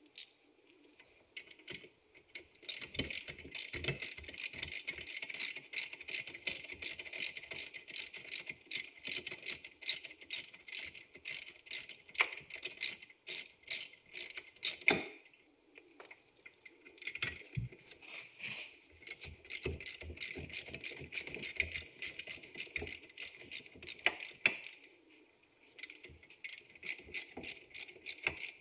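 Rapid metallic clicking and rattling of hand tools working on the wheel hub, dense and fast, breaking off briefly about halfway through and again near the end.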